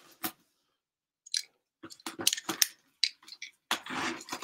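Shrink-wrap on a cardboard collectibles box crinkling and crackling as hands turn the box over and pull at the wrap. The crackles are irregular, starting about a second and a half in and growing thicker near the end.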